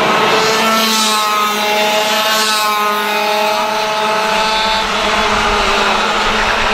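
Racing kart engines running at high revs, their pitch rising and falling as the karts accelerate and lift off; near the end the engine tones fade under a low rumble.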